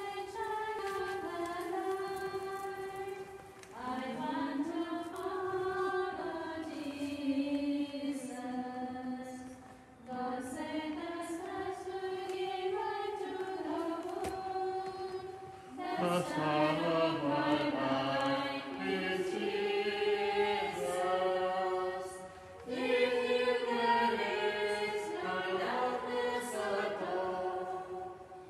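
Nuns singing a hymn together, in phrases about six seconds long with brief breaks between them.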